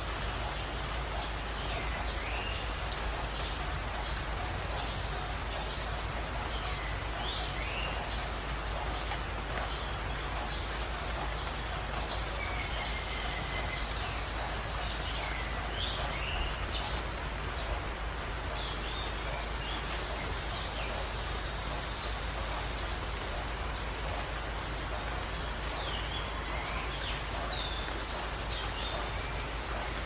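Songbirds over a steady rush of water. A bird repeats a short, very high, rapid trill about seven times, every few seconds, and these trills are the loudest sounds. Softer chirps and whistles come between them.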